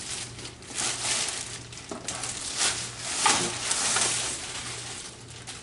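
Plastic wrapping and cardboard packaging rustling and crinkling in uneven spells as a rifle is slid out of its plastic sleeve and the box inserts are handled.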